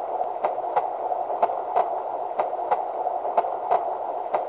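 Recorded heartbeat played through the small speaker of a Zazu Dex sleep-aid plush's sound box: a double beat about once a second over a steady background noise.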